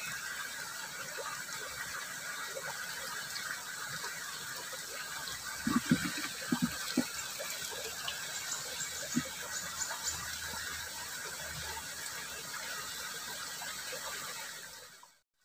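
Small ditch stream flowing swiftly, a steady rushing and babbling of water. A few brief knocks come about six to seven seconds in, and the sound fades out near the end.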